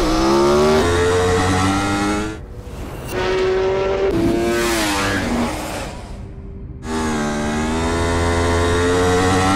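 2009 Yamaha R1's crossplane-crankshaft inline-four engine revving high in three loud bursts. The first snaps up in pitch and holds, the second holds and then falls away, and the third climbs steadily. Each cuts off sharply.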